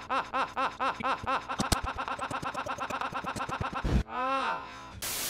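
A laugh cut into a looped stutter, the same short chuckle repeated about four times a second and then faster. Near the end it gives way to one drawn-out, arching voice sound, then a short burst of hiss.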